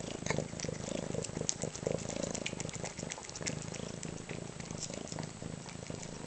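Kitten purring steadily while eating wet canned cat food, with many small wet clicks of chewing and licking over the purr.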